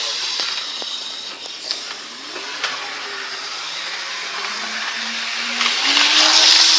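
Electric toy train's small motor whirring as the train runs along the track at full speed, with a couple of light clicks. The whir grows louder about six seconds in.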